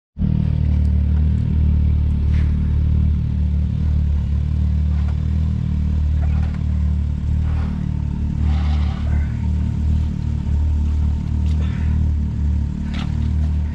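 Side-by-side UTV engine idling steadily, with a few scattered knocks and clatters.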